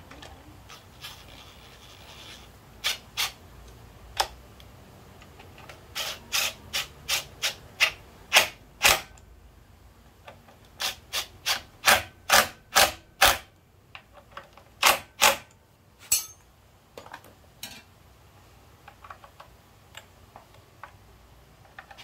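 Compact cordless impact driver run in short trigger bursts, about twenty quick rattling pulses in several clusters, as it drives in the bolts of the Honda ADV350 scooter's CVT cover during reassembly.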